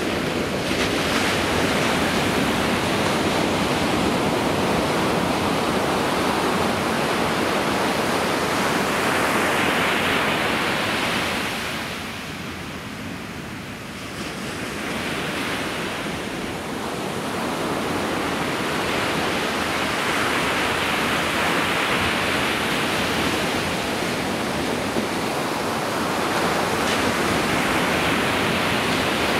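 Ocean surf breaking and washing up a sandy beach: a steady rush of waves that swells and eases, falling off for a couple of seconds about halfway through before building again.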